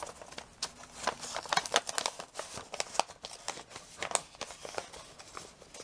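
Paper and clear plastic sheets rustling and crinkling as hands handle a homemade cardboard folder and its acetate pocket, in a string of irregular crinkles and light taps.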